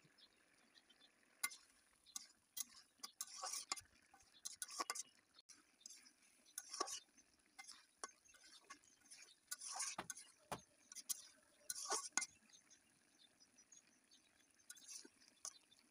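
Spatula stirring fig-and-potato curry in a karai, making irregular scrapes and clinks against the pan.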